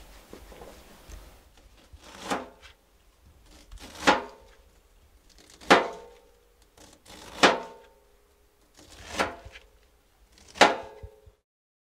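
Six heavy, evenly spaced knocks, about one every 1.7 seconds, each ringing briefly. The first is softer than the rest, and the sound cuts off suddenly near the end.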